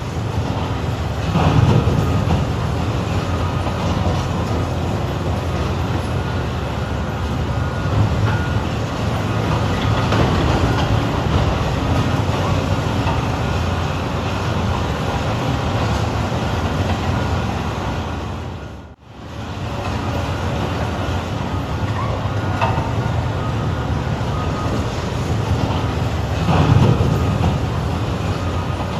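Heavy diesel machinery running steadily: an excavator and a mining dump truck working during loading, with a few louder swells. The sound breaks off sharply for a moment about two-thirds of the way through.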